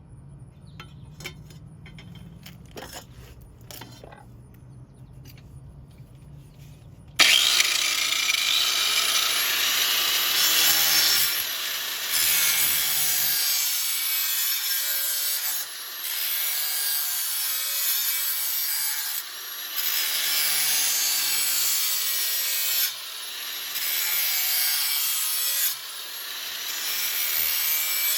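A power grinder grinding the edge of a steel lawn mower blade. It starts abruptly about seven seconds in and runs in several passes of a few seconds each, with brief breaks between them. Before it starts there are a few faint clicks.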